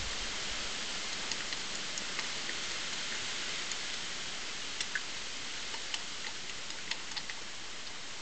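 A badger eating: irregular small, sharp crunching clicks over a steady hiss.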